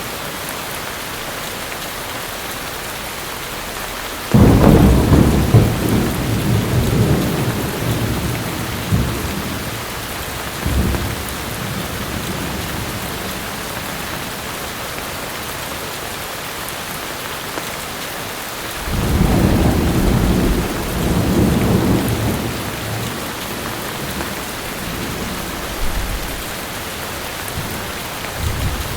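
Steady heavy rain with thunder rumbling twice: a sudden loud roll about four seconds in that fades over several seconds, and another around nineteen seconds in.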